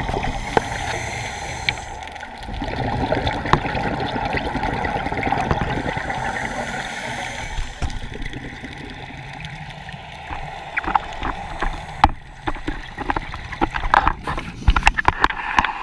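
Underwater sound of a scuba diver's exhaled bubbles gurgling, heavy in the first half and quieter in the middle. In the last few seconds a quick run of sharp clicks and knocks.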